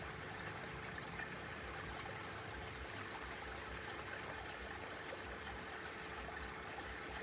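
Faint, steady background hiss with a faint steady hum underneath and no distinct events.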